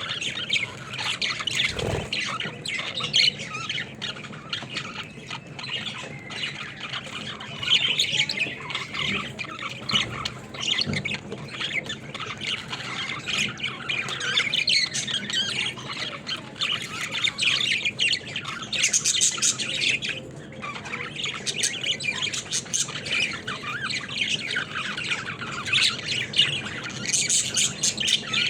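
Several pet budgerigars chattering and chirping, a continuous stream of quick, high squawks and warbles overlapping one another.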